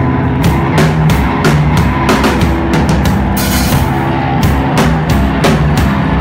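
Live drum kit played hard, with frequent cymbal crashes and snare and bass-drum hits, over a loud sustained low drone from the electronics.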